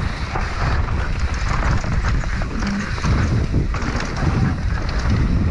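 Wind buffeting the microphone and tyres rolling over a dry dirt trail as a downhill mountain bike descends at speed, with scattered clicks and rattles from the bike.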